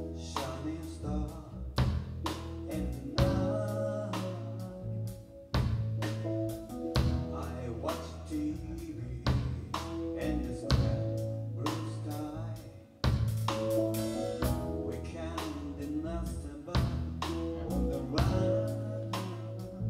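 A live band playing: electric bass, drum kit and stage keyboard, with regular drum hits over held keyboard and bass notes. The playing drops out briefly twice, about five and thirteen seconds in.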